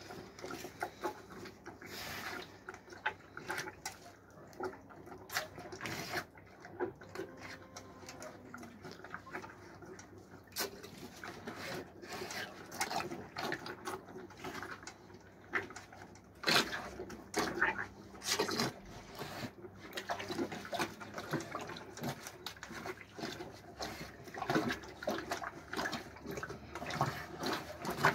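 Cattle slurping and lapping watery feed from a metal basin and a small metal pail, with many irregular wet smacks and clicks.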